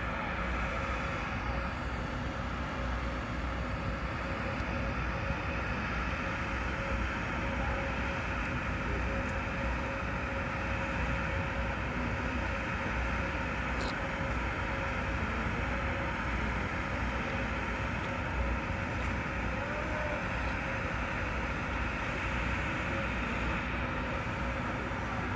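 Steady machinery hum and low rumble with a faint constant tone, unchanging throughout.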